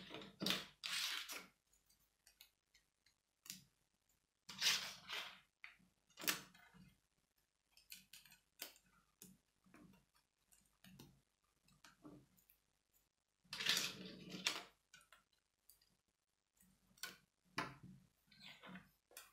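Lego plastic pieces clicking and clattering as the helicopter's rotor blades are handled and fitted together: scattered small clicks, with two longer spells of rattling about five seconds in and about fourteen seconds in.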